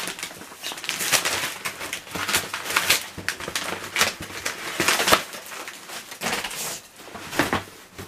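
Packaging being torn open and crinkled by hand: irregular crackling and rustling with several sharper tearing bursts.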